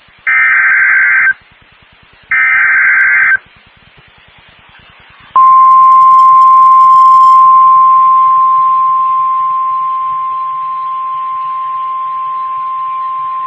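Emergency Alert System broadcast: three short screeching SAME digital header bursts about a second apart, then a long steady single-pitch NOAA Weather Radio warning alarm tone. The tone gets quieter partway through. Together they signal the start of a new fire warning.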